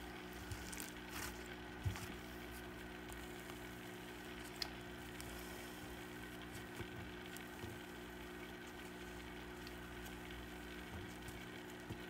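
Quiet room tone: a steady low hum under a faint hiss, with a few small soft clicks scattered through.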